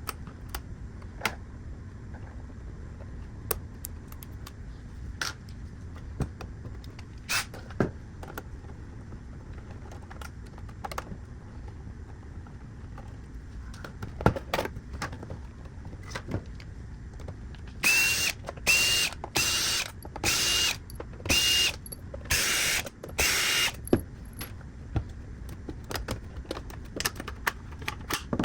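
Sharp clicks and taps of a game console's plastic case and parts being handled and pried apart during disassembly, then, from about two-thirds of the way in, an electric screwdriver running in seven or eight short bursts, each with a steady whine, as it backs out the console's screws.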